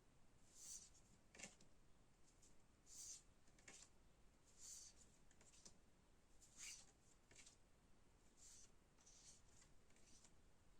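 Faint, soft ticks and rustles of thin paper playing cards being handled and flipped one after another, about one a second.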